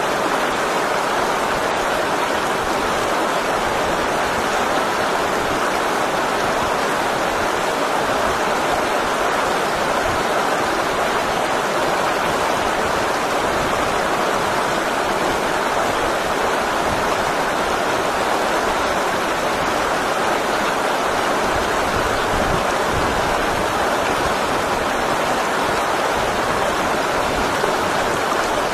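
Shallow river rapids rushing steadily over rocks, a loud, unbroken roar of water.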